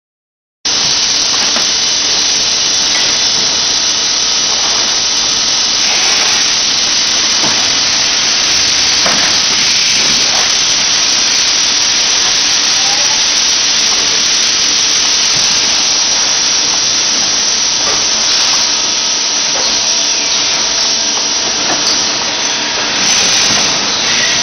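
PE extrusion blow-moulding machine making 4-litre bottles, running with a loud, steady hiss, a faint steady hum underneath and a few faint knocks. The sound starts about half a second in.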